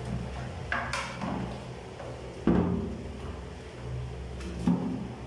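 Dull knocks and bumps against a tiled bathroom wall while it is being cleaned of mould, the loudest about two and a half seconds in, with a steady low hum underneath.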